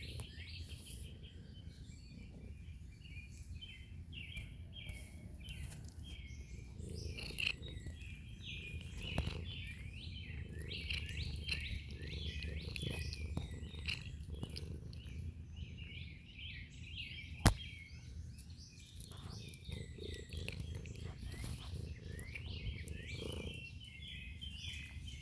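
Birds chirping repeatedly in quick short calls over a steady low rumble, with one sharp click about 17 seconds in.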